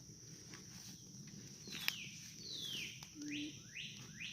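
Outdoor birdsong: a few quick falling whistles, then a run of short rising ones, over a steady high-pitched insect drone. One faint click about two seconds in.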